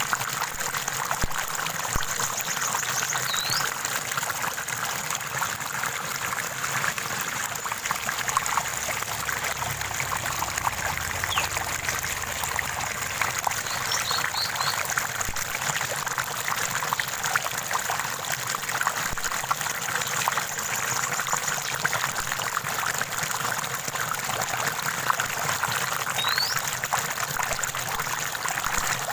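Small stream of water running and trickling steadily over rocks, with a few short, high bird chirps scattered through it, including a quick run of three about halfway.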